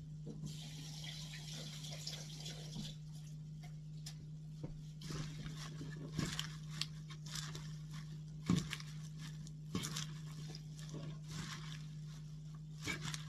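A tap runs briefly as hands are washed. Then hands toss dressed salad greens in a wooden bowl, the leaves rustling and crackling unevenly, over a steady low hum.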